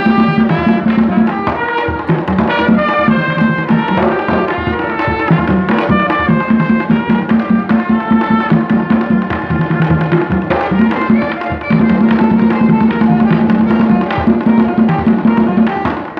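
Live Haitian folkloric music: tall hand drums beat a steady rhythm under a trumpet melody.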